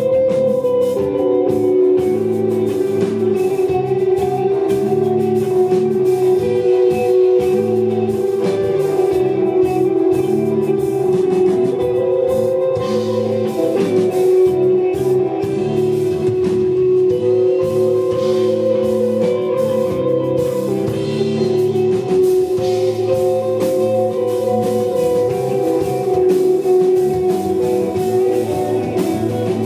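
Live desert rock band playing an instrumental passage: electric guitar holding long notes over a repeating bass figure and a drum kit.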